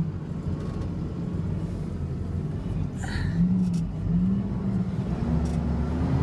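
Moving truck's engine running as the truck pulls out onto the road. Its pitch climbs from about five seconds in as it accelerates, and there is a brief higher sound about three seconds in.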